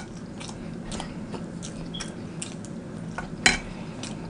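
Close-miked chewing of a mouthful of food: a string of small wet mouth clicks and smacks, with one sharper, louder click about three and a half seconds in, over a low steady hum.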